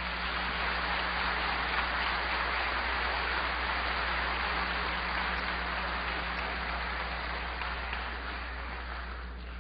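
Large audience applauding: a dense, even clapping that swells in the first second and slowly dies away toward the end, over a steady low mains hum.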